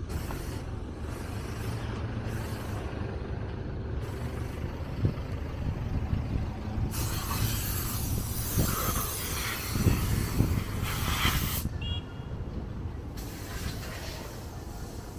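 City street traffic: a steady low rumble of passing vehicles. About seven seconds in, a loud hissing rush builds and lasts about four seconds, followed by a brief high squeak.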